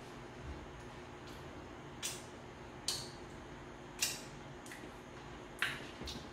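Lip smacks from tasting a creamy mixture off a spoon: about five short, sharp clicks roughly a second apart, over a faint steady hum.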